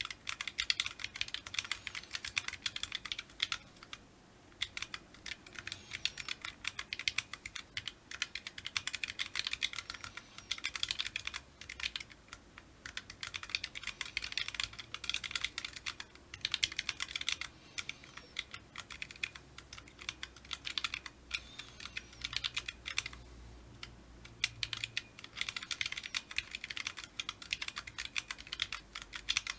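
Fast typing on a Corne-ish Zen split keyboard with Sunset tactile switches: a dense run of key clacks in quick bursts, broken by a few short pauses.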